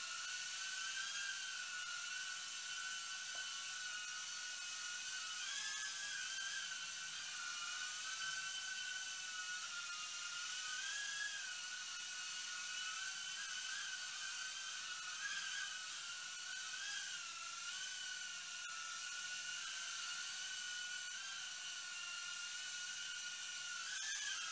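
Mini RC quadcopter's tiny motors and propellers whining steadily in flight, the pitch wavering up and down as the throttle is adjusted.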